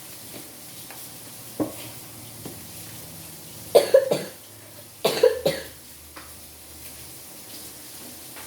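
A person coughing in two short fits about a second apart, each of several quick coughs.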